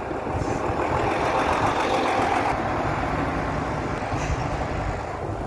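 Diesel single-deck bus engine and tyres as the bus drives past close by, growing loudest about two seconds in and then easing off, with another bus's engine running underneath.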